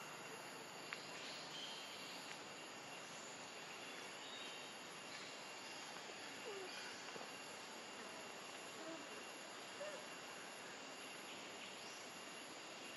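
Faint forest ambience: a steady high-pitched insect drone over a soft hiss, with a few brief faint chirps near the middle.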